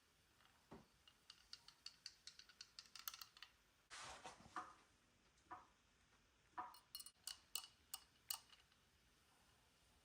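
Faint clicking and tapping of small parts being handled: a quick run of light ticks, a short scratchy rustle about four seconds in, then a few more scattered clicks.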